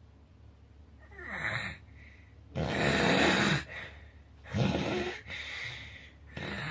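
A sleeping person snoring loudly: four snores in turn, each a second or less long, the loudest about two and a half seconds in.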